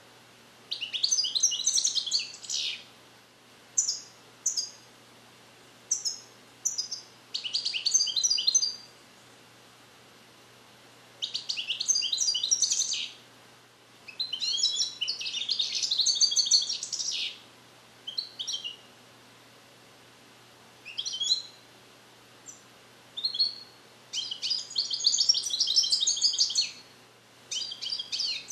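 European goldfinch, a young cage-bred male trained on the Neapolitan 'passata' song, singing. He gives bursts of rapid, high twittering trills one to two seconds long, broken by short single chirps and pauses. He repeats the trained passages but the song is not yet complete.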